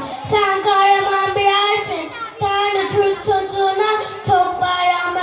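A young girl singing solo into a microphone: a simple melody of held notes, each about half a second long.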